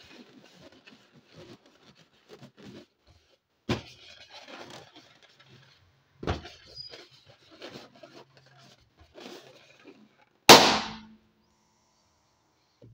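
Hands squeezing and rubbing an inflated latex balloon, its skin squeaking and rustling with a couple of sharper knocks, then the balloon bursting with a loud pop about ten seconds in.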